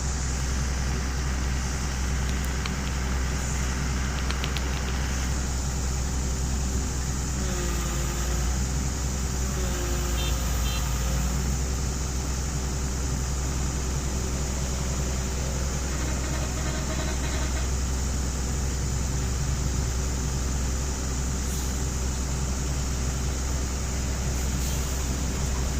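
Excavator's diesel engine running steadily, a constant low drone, with a few faint ticks and brief whines on top.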